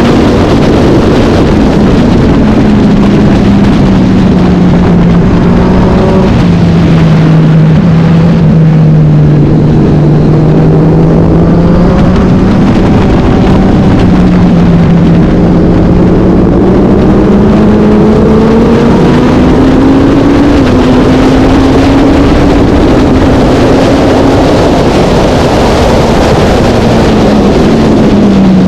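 Racing motorcycle engine running hard and continuously, its pitch falling and rising as the revs change through the laps.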